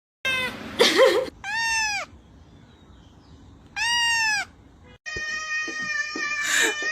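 Cat meowing: a wavering call, then two drawn-out meows that rise and fall in pitch. About five seconds in the sound cuts out, and a steadier, flatter high-pitched sound with clicks follows.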